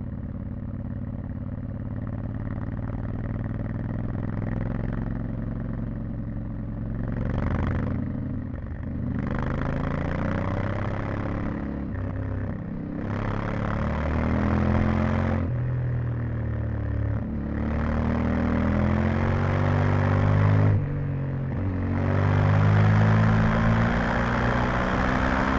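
Yamaha Ténéré 700's parallel-twin engine with stock exhaust, heard onboard: it runs at steady throttle for about seven seconds, then pulls hard five times in a row, the note rising with each pull and dropping briefly as the throttle is closed between them.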